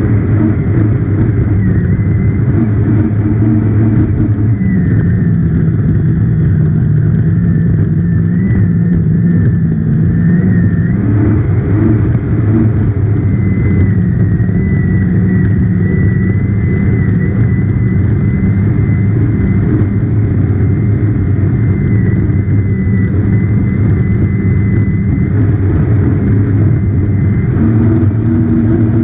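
Racing hydroplane's engine running hard at speed, heard from on board as a loud steady drone. Its pitch sags a little about five seconds in and climbs back some six seconds later.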